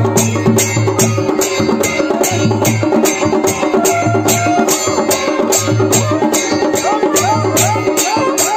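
Kumaoni Pahadi band music: a masakbeen (bagpipe) holding steady drones under a melody that slides between notes, over an even drum beat of about three strokes a second.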